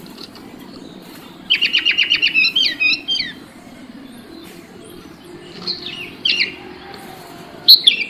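Sooty-headed bulbul (kutilang) singing. About a second and a half in comes a quick run of about nine sharp chirps that runs into a short warbled phrase. Two brief calls follow, then one loud note near the end.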